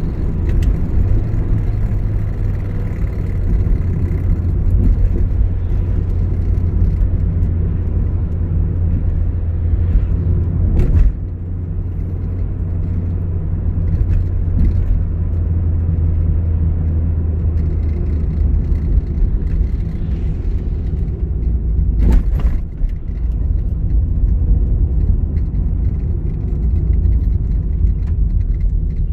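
Car engine and road noise heard inside the cabin while driving, a steady low drone that drops in level about eleven seconds in. A brief thump comes a little over twenty seconds in.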